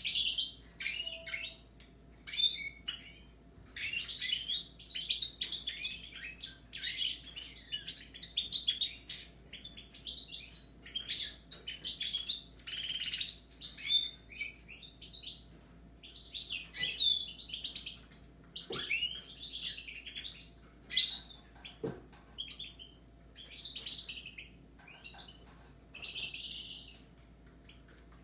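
Caged goldfinches and Raza Española canaries singing together in fast, twittering phrases broken by short pauses.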